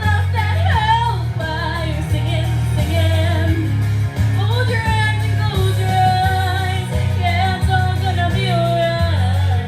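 A young girl singing a country-pop song over an instrumental backing track with a steady bass.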